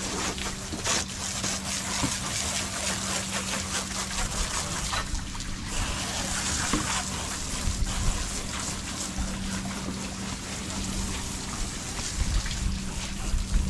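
Rinse water trickling and splashing off a boat hull after being sprayed down with a hose, over a steady low hum.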